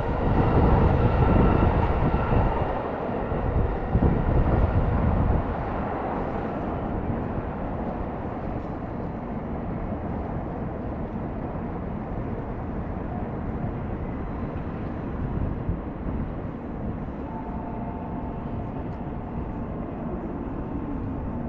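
Electric train running on the tracks below, its motor whine and low rumble fading away over the first five seconds or so. A steady hum of city and rail-yard traffic follows, with a faint new whine coming in near the end.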